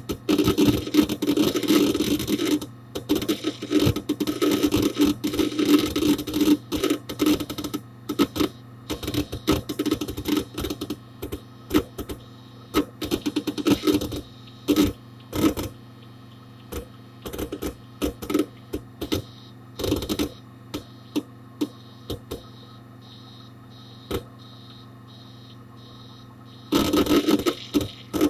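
Hard disk drive inside a Dell Dimension 4700 desktop working: rapid clicking and rattling bursts of head seeks. They thin out to occasional clicks over a steady hum in the middle, then turn busy again near the end.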